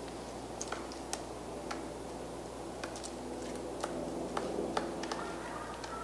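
Pileated woodpecker chiselling into a tree trunk: sharp, irregular knocks of its bill on wood, about one or two a second, some in quick pairs, over a steady low background noise.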